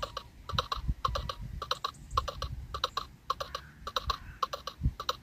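Clip-clop of horse hoofbeats for the toy horses walking: quick hollow clicks, about four a second, often in pairs.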